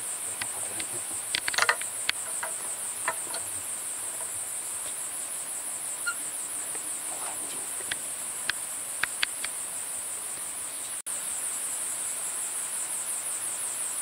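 A steady, high-pitched insect chorus with a fast pulsing buzz, over which a handful of short sharp clicks or chirps stand out, the loudest cluster about a second and a half in and a few more around eight to nine seconds in. The sound breaks off for an instant about eleven seconds in.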